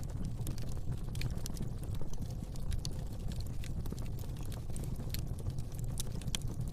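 Wood fire burning in a fireplace, crackling with many small irregular pops and snaps over a steady low rumble of the flames.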